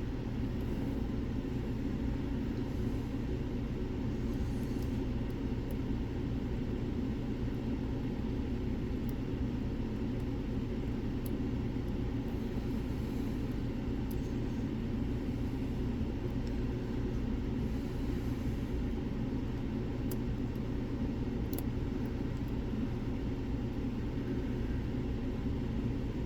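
Steady low rumble, with faint light ticks here and there from a pick working the pins of an Era Fortress pin-tumbler lock.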